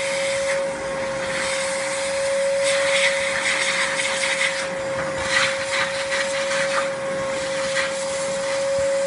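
Vacuum cleaner running with a steady whine, its suction hiss swelling and dropping irregularly with short scratchy bursts as it is worked over a Sony Xperia Z3's speaker and microphone openings to clear them.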